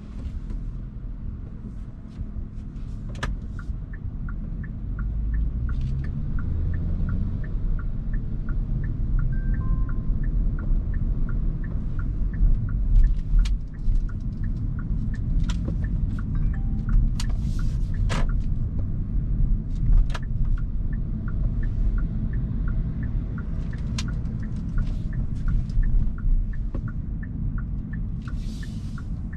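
Hyundai Kona Hybrid driving, heard from inside the cabin: a steady low rumble of road and tyre noise. A light, regular tick comes about twice a second through most of it, with scattered sharp clicks and knocks.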